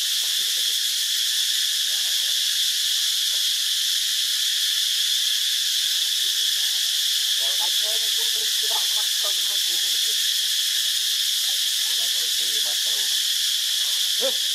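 Steady, high-pitched drone of an insect chorus such as cicadas, holding a constant level throughout. Faint, broken voice-like sounds come and go under it, mostly in the second half.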